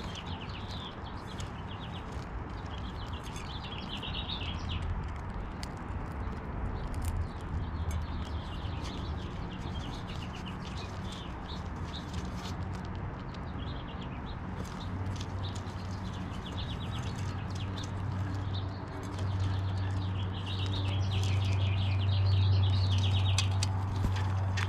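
Birds chirping in short repeated trills over many small clicks from a squirrel eating seeds at a feeder. A steady low hum runs underneath and grows louder in the last few seconds as the squirrel brushes against the camera.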